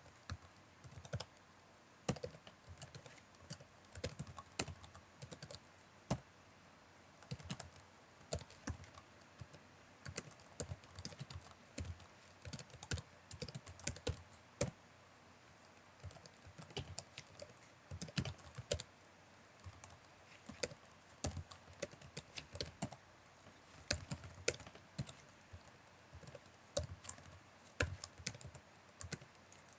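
Typing on a computer keyboard: irregular runs of keystroke clicks with brief pauses between bursts, and a louder thunk here and there.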